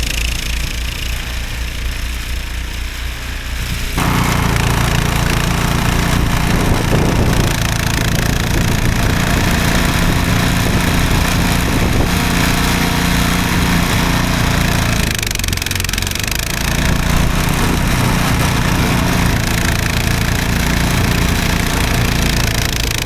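Gasoline snowblower engine running steadily, getting suddenly louder about four seconds in and easing off briefly after about fifteen seconds.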